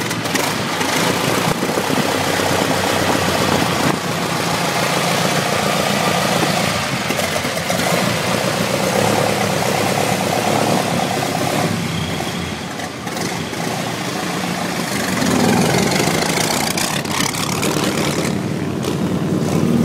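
The 1915 Hispano-Suiza's 18-litre V8 engine running with a heavy, steady note. It eases off briefly about two-thirds of the way through and grows louder near the end.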